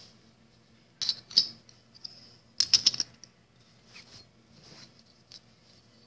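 Seashells clicking and clattering against one another as they are picked up and set down: a few sharp clicks about a second in, a quick cluster near three seconds, then a couple of light ticks.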